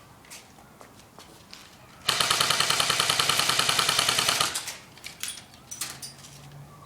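Airsoft electric gun (AEG) firing one full-auto burst of about two and a half seconds, a fast, even chatter of shots.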